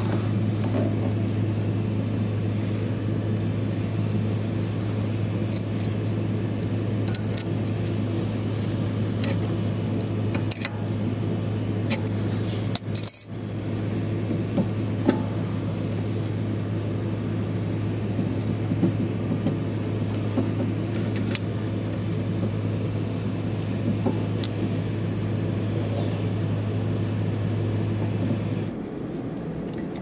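Light metallic clinks and clicks of a caliper piston spreader tool and wrench being turned against a brake caliper to push the piston in, over a steady low hum that cuts off near the end.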